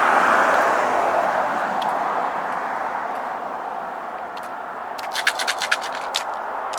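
A passing car's road noise, loudest at the start and fading away over a few seconds. About five seconds in there is a quick run of light clicks.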